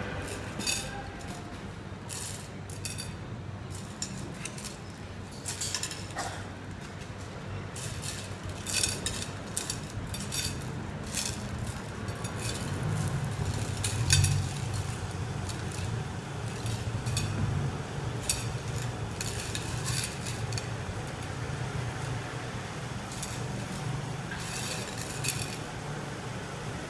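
Small glass pebbles clinking and scraping in clear dishes as hands and bare feet press and shift on them, in scattered, irregular clicks over a low steady rumble.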